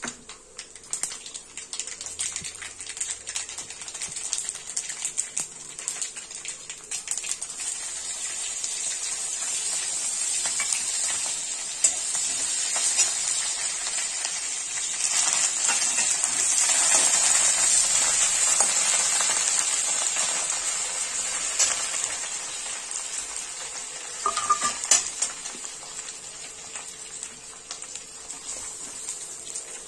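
Mustard seeds crackling and popping in hot oil in an aluminium wok for a tempering, with a metal slotted ladle stirring and scraping. The sizzle swells to its loudest about halfway through and then eases off, with a few sharper clinks of the ladle near the end.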